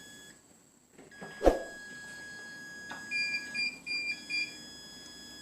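Multimeter continuity beeper giving a steady tone across the UPS transformer's AC-side winding, a sign that the winding is intact. The tone drops out just after the start and comes back about a second in, with a sharp click about 1.5 s in. Between about 3 and 4.5 s a quick run of about five short, higher, louder beeps sounds over it.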